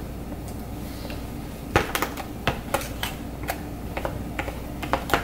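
Quick, irregular clicks and taps of a plastic pump bottle being handled, about two or three a second, starting just under two seconds in, over a steady low hum.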